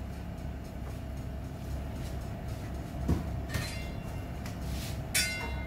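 Steady low rumble of a gas stove burner heating a pot of water, with a few light metallic clinks, the last near the end as the pot's glass lid is put on.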